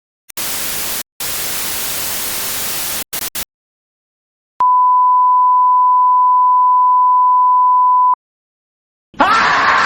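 TV static hissing in chopped bursts for about three seconds, then a steady single-pitch censor beep held for about three and a half seconds. Near the end a person's scream begins.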